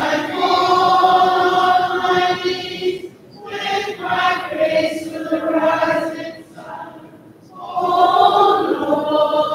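A group of voices singing a slow hymn in long, held phrases, with short breaks between them about three seconds and seven seconds in.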